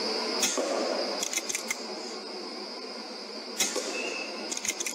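A few sharp mechanical clicks and ticks in two groups, one about half a second in and another near the end, over a steady high-pitched hiss from the digital night-vision scope's own recording.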